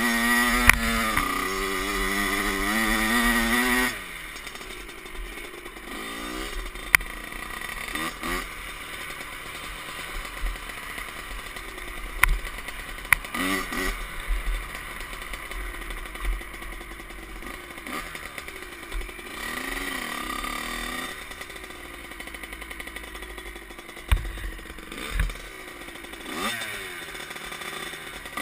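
Kawasaki KX65 two-stroke dirt bike engine, fitted with a Pro Circuit expansion pipe and silencer, revving hard for about four seconds. It then drops suddenly to a much quieter low running, with occasional short rev blips and scattered knocks.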